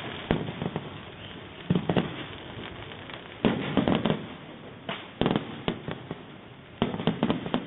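Fireworks display: aerial shells bursting with sharp bangs in clusters every second or two, over continuous crackling.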